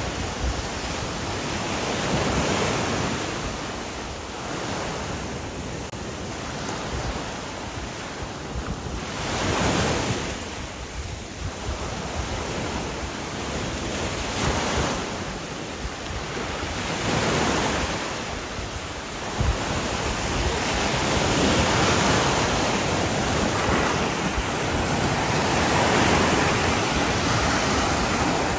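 Sea surf washing onto a beach, the rush of the waves swelling and fading every few seconds.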